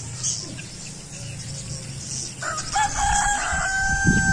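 A rooster crows once, a long held call starting a little past halfway through. Faint high-pitched twittering of swiftlets runs underneath.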